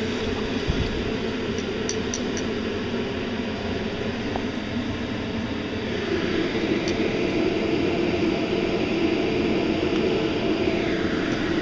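Steady rushing noise that grows louder about six seconds in, with a few faint clicks.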